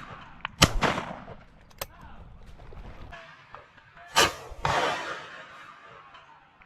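Shotgun shots on a driven pheasant drive: two loud reports, one about half a second in and one about four seconds in, each trailed by a short echo, with a few fainter, more distant shots between them.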